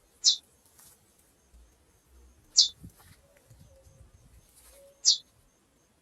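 Female chestnut-bellied seed finch (curió) giving short, high call notes, three in all, about two and a half seconds apart, each a quick downward sweep.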